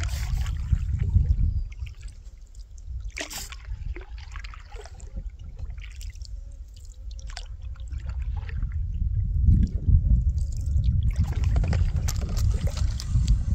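Canoe paddle strokes, with water trickling and dripping off the paddle. A low wind rumble on the microphone is the loudest sound in the first second or two and again from about two-thirds in.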